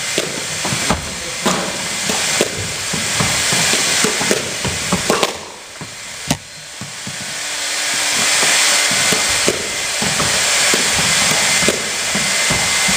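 Squash ball being hit by rackets and smacking off the court walls in a fast drill: sharp knocks every second or so at uneven intervals over a steady hiss.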